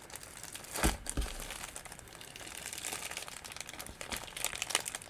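Clear plastic packaging of a rolled diamond painting kit crinkling as it is handled, with a couple of soft knocks about a second in.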